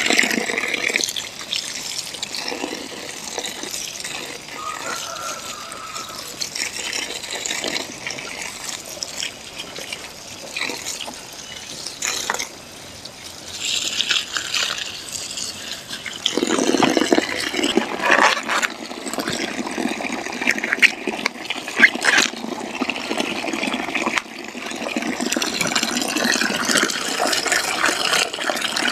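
A stream of water pouring into a plastic basin while hands swish and rinse bunches of cassava leaves in it, splashing unevenly as the leaves are lifted and plunged back in.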